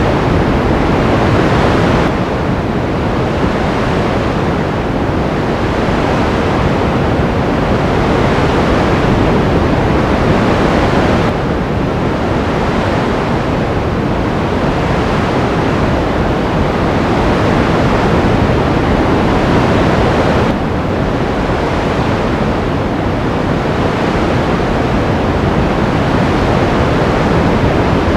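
Ocean surf: a continuous loud rush of breaking waves, its tone changing abruptly about every nine seconds.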